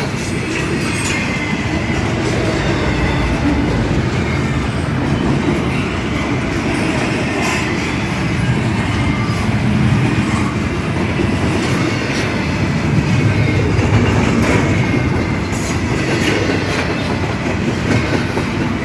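Intermodal freight train of container cars rolling past close by: a steady rumble of steel wheels on rail, with irregular clicks over the rail joints and a faint high wheel squeal.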